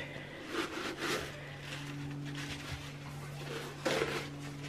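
Soft rustling and handling of packaging as glasses are unpacked from a box, in a few brief bursts with a stronger one near the end, over a steady low hum.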